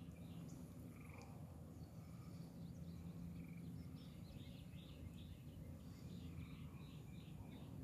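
Faint chorus of frogs calling: short repeated notes that come thicker from about four seconds in, over a low steady hum.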